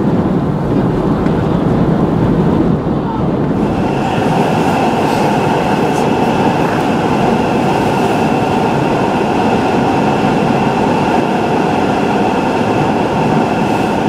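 Storm-force wind roaring steadily. About three and a half seconds in it becomes a steadier rumble with a faint steady hum underneath.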